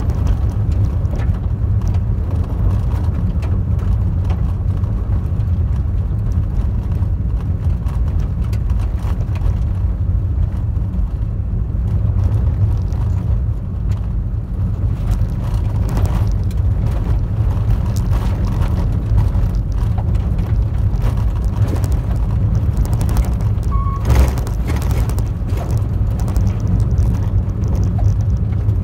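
Car driving on a gravel road, heard from inside the cabin through a dashcam microphone: a steady low rumble of tyres and engine with scattered crackles of gravel under the tyres, and one sharper knock about 24 seconds in.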